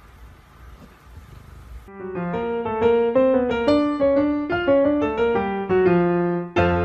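Piano music with quick, busy notes starts about two seconds in, after faint low noise.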